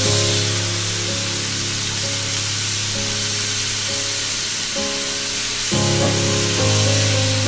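Raw marinated chicken wings sizzling on a hot grill grate: a steady hiss over background music of held notes that change about two thirds of the way through.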